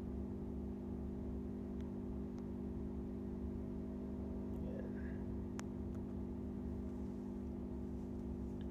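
Steady drone of ship engine-room machinery: a constant hum with a low rumble underneath, and a couple of faint clicks partway through.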